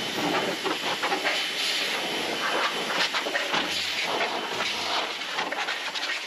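Cordless drill-driver running against the steel frame of a CNC plasma cutting table, driving fasteners, with a thin steady high whine over a dense, rattly noise.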